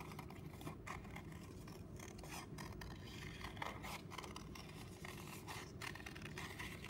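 Scissors cutting through black paper: a faint run of short, irregular snips as the blades follow a curved line.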